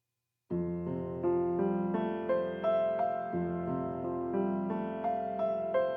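Background music: a piano plays a slow melody of held notes over a repeating bass line, starting about half a second in.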